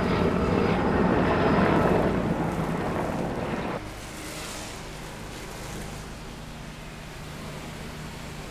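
Loud, steady rotor and turbine noise of an Erickson S-64 Air-Crane firefighting helicopter flying past; it cuts off abruptly a little under four seconds in. A quieter steady hiss of a garden hose spraying a jet of water follows.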